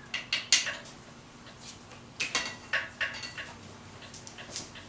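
Light metallic clinks and taps, a dozen or so irregular ones, as bolts and small metal engine parts are handled and set down.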